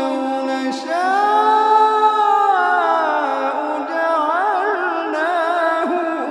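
A man's voice reciting the Quran in a melodic, drawn-out style, holding long notes: about a second in a note rises and then slowly falls, and around four to five seconds in it turns into a quick, wavering ornament.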